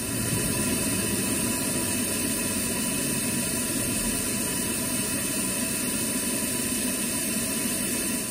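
Steady, even hiss with a faint hum beneath it, from a Saab 9-5 V6 turbo engine's oil-line flush in progress.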